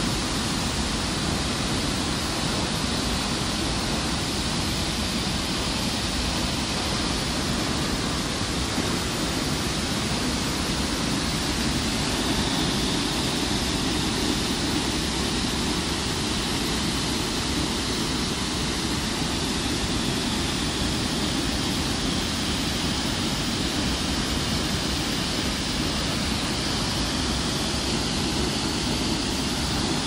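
Steady, unbroken rush of water falling at a large waterfall.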